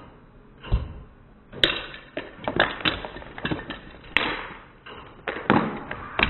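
Foam Nerf darts fired in quick succession, smacking into furniture and dropping onto a hardwood floor: an irregular string of sharp taps and thuds, about a dozen in all.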